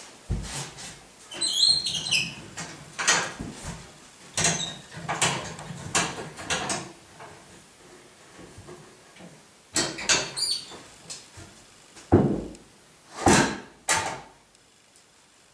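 Hand-cranked scissor jacks lifting or lowering the casters of a wooden worktable, giving irregular creaks and knocks, with a short high squeak about two seconds in and another near ten seconds.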